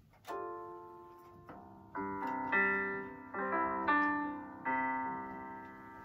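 GarageBand software piano played from a MIDI keyboard: one chord, then a quicker run of chords, each struck and left to ring and fade. It is a test play showing the keyboard is working.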